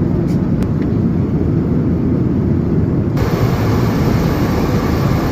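Airliner noise: a steady low rumble, with a higher hiss joining about three seconds in.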